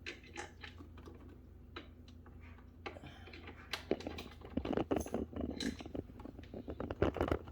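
Clicks, taps and scratchy scraping of exercise-bike parts being handled and fitted by hand during assembly, growing busier in the second half.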